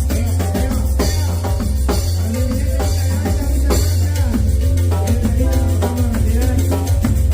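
Latin dance music with a drum kit, hand percussion and a heavy, steady bass line.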